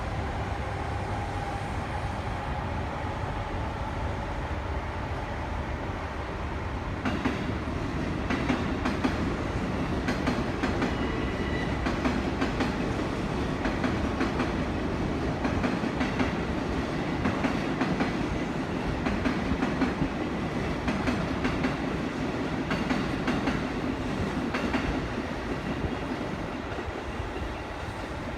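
A freight train hauled by an EF65 electric locomotive passing by. A steady whine fades over the first few seconds, then from about seven seconds the freight wagons' wheels clack over the rail joints in a long run of beats that eases off near the end.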